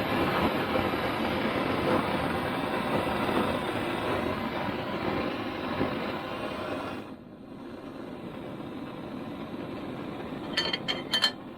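A steady rushing noise from the heating tool warming a Lambretta gearbox end plate, so that a new bearing will drop into it. The noise drops sharply about seven seconds in and carries on more quietly. A few sharp clicks come near the end.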